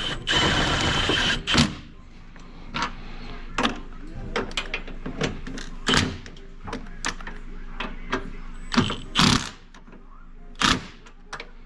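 Hand tools and metal fasteners clinking and knocking during engine-mount reassembly. A dense rattle of clicks runs for about the first second, followed by scattered sharper knocks.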